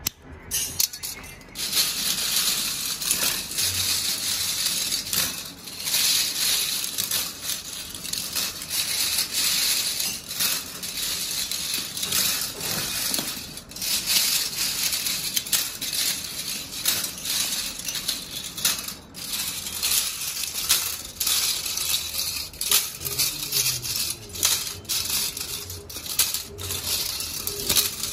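Heaps of metal battery alligator clips clinking and clattering as they are scooped up by hand and dropped into a plastic sack: a dense, continuous jingle of metal on metal with a few brief lulls.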